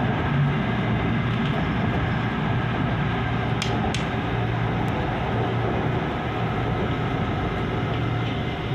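Steady running noise heard inside a moving Manila LRT Line 2 light-rail car: an even low rumble and hum from the car travelling along the track. Two brief high clicks sound close together about three and a half seconds in.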